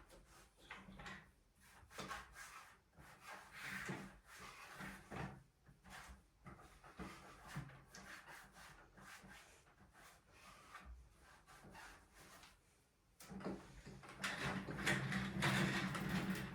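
Tidying and handling sounds: objects picked up, set down and slid over wooden surfaces in irregular strokes, with a louder stretch of continuous rubbing and shuffling in the last few seconds.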